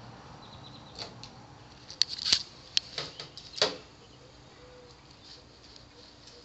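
Scissors snipping: a handful of sharp clicks between about one and four seconds in, the loudest around two seconds in.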